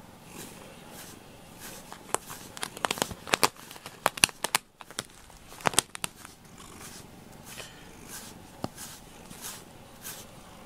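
FURminator deshedding brush rasping through a cat's fur in regular strokes, with a cluster of loud sharp clicks and crackles in the middle.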